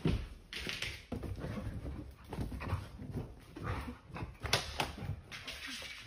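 A dog vocalizing in a run of short, irregular sounds as it plays with a cat.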